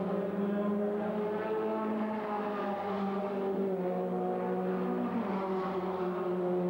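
Race car engine running at a steady speed, its pitch holding almost constant with a slight waver about five seconds in.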